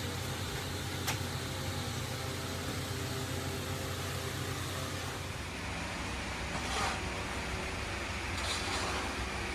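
Steady machinery hum with a low drone and noise, with a brief swell of noise about seven seconds in.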